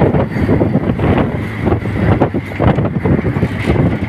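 Truck on the move, heard from its open cargo bed: engine and road noise with wind buffeting the microphone and frequent irregular knocks and rattles.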